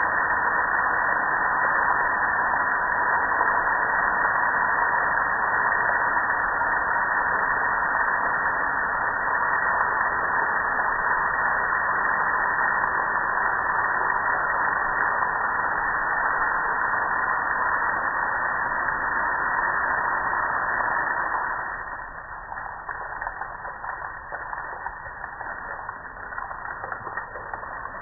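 Steady rushing hiss of water spraying onto a soaped-up gas grill, dropping sharply in loudness a little after twenty seconds.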